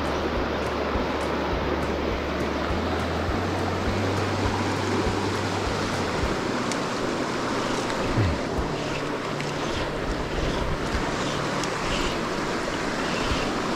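Shallow, fast trout-stream riffle rushing over a gravel bed, a steady wash of water noise.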